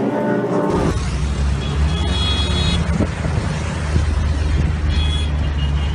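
After an abrupt cut about a second in: a steady low rumble of vehicle engines and traffic, with the hiss of a fire extinguisher spraying over it. A brief high-pitched tone sounds twice.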